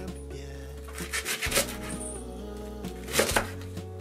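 Background music with a deep, steady bass. A chef's knife cuts through mizuna on a wooden cutting board, with a cluster of sharp cuts about a second in and another knock just past three seconds.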